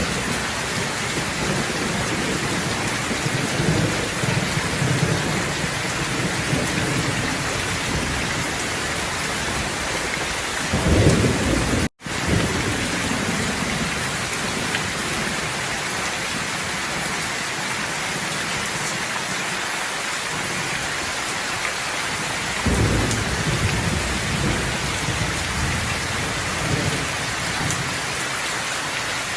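Steady heavy rain with rolling thunder rumbling several times, loudest about eleven seconds in and again near the end. The sound drops out for an instant at about twelve seconds.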